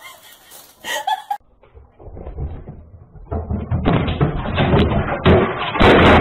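A flat-screen television toppling off its stand onto a tiled floor, heard as a loud crash about five to six seconds in. A dense clattering, rumbling noise builds up before it.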